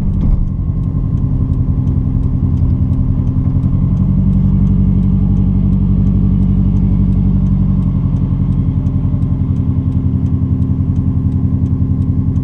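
Car engine and road noise heard from inside the moving car's cabin: a steady low drone with a fast, even pulse.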